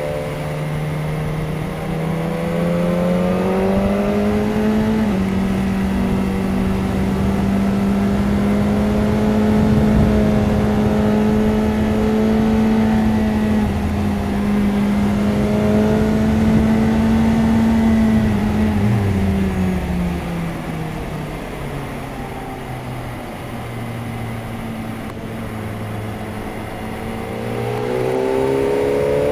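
BMW S1000RR inline-four sport bike engine under hard acceleration, heard from the bike. Revs climb in third gear, drop in a step at an upshift about five seconds in, then hold high down the straight in fourth. They fall as the throttle closes for the next corner, stay low for several seconds, and climb again near the end.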